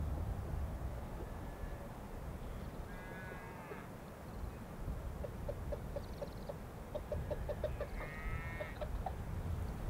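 Chickens clucking in a quick series of short clucks, with two longer quavering calls, one about three seconds in and one near the end, over a low rumble of wind.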